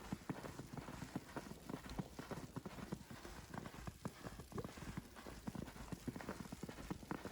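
Footsteps crunching through fresh powdery snow in hard frost, one crunch after another at walking pace.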